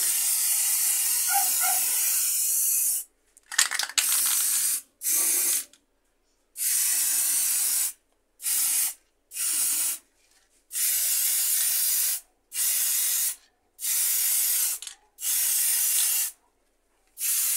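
Aerosol can of Tech Bond gloss white spray paint hissing as paint is sprayed, first in one long burst of about three seconds and then in about ten short bursts with pauses between. There are a few clicks about three and a half seconds in.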